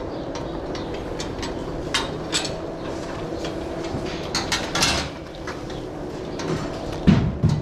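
Metal headlock feeding fence rattling and clanking as dairy cows move their heads through it while eating, with irregular sharp knocks over a steady low hum. A louder low thud comes near the end.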